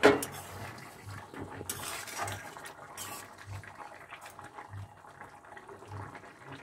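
Vegetable curry simmering in a metal kadai on a gas stove, bubbling, while a metal spatula stirs and scrapes through it. A loud clank of metal cookware right at the start.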